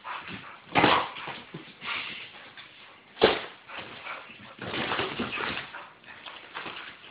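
Pit bull whining and yipping in short, irregular bursts as it goes at a box, with a sharp knock about three seconds in.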